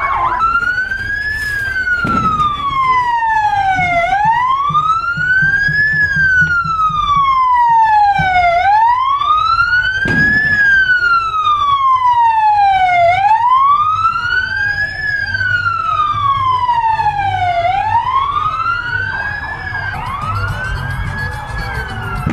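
Emergency-vehicle electronic siren in wail mode: one loud tone rising and falling slowly in pitch, about once every four and a half seconds. Near the end a second, differently shaped siren tone joins in.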